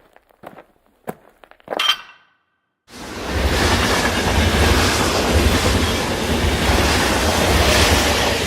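A few separate knocks, the last with a brief ring, then after a moment of dead silence a sudden switch to a steady, loud rumbling noise that runs on.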